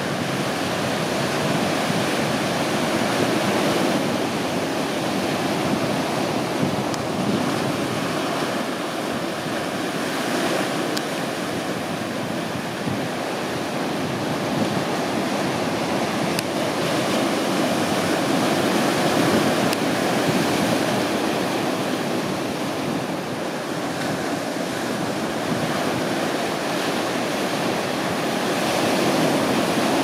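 Sea water washing against a rocky shoreline: a steady rushing that swells and eases slowly.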